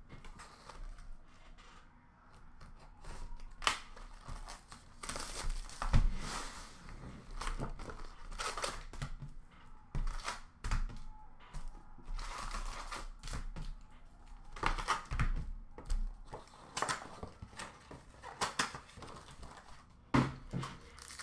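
A hockey card box being torn open by hand and its packs taken out and stacked: irregular crinkling, tearing and rustling of packaging, with a few sharp knocks.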